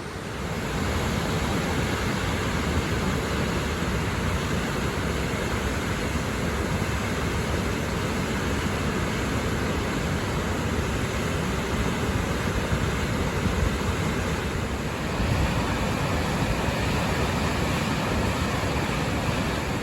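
Large waterfall in high flow after heavy rain: a steady, full rush of falling water with a deep low rumble.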